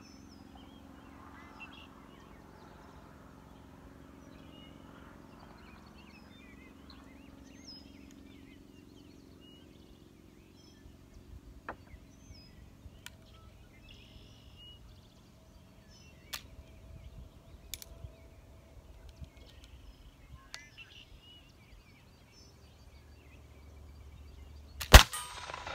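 Quiet outdoor background with birds chirping and a few faint clicks, then near the end a single loud shot from a British dragoon flintlock pistol firing.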